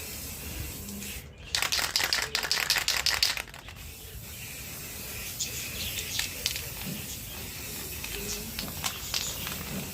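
An aerosol spray-paint can spraying in one hissing burst of about two seconds, starting about one and a half seconds in. Faint small-bird chirps follow in the background.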